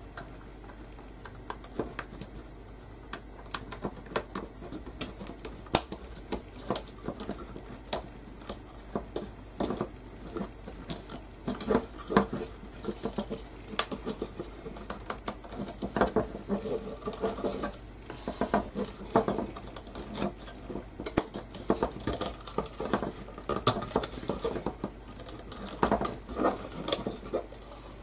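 Hands fitting small painted craft pieces into a birdcage frame: irregular small clicks, taps and rustling as the pieces are pushed into place.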